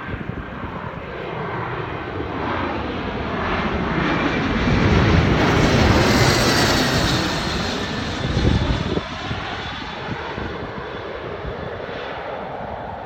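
Bombardier twin-engine jet passing low overhead on its landing approach: the engine noise builds to a peak about halfway, then eases off, its whine falling in pitch as the jet goes by.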